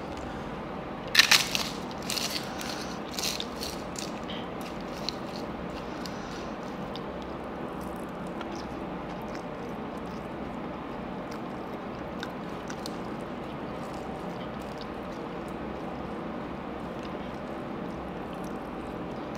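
Pappadam being broken and crushed by hand: a loud crisp crackle about a second in, then a few smaller crackles over the next few seconds. After that only a steady low background hum with occasional faint clicks.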